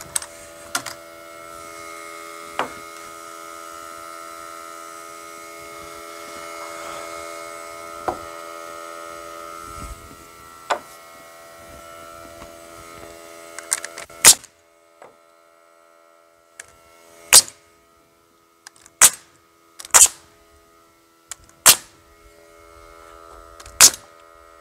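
Pneumatic nail gun driving nails into wooden furring strips on roof rafters: six sharp shots, one to three seconds apart, in the second half, with a few fainter knocks before. A steady hum runs under the first half and stops about halfway through.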